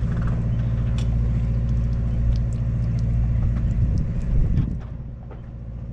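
Boat engine running steadily at idle, a low drone, with a few light clicks and knocks over it; the engine sound drops to a lower level shortly before the end.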